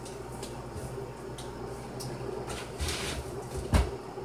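Rummaging through kitchen containers in search of a jar of minced garlic: a few light knocks and clatters, with one sharper knock near the end, over a faint steady hum.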